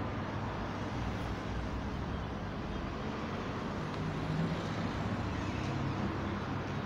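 Steady hum of distant road traffic, a continuous low rumble with no distinct events.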